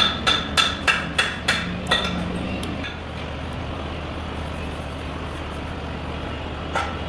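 A hammer strikes metal in a quick, even series of about three blows a second, each with a ringing note. The blows stop about two seconds in, and one more comes near the end, over a steady low hum.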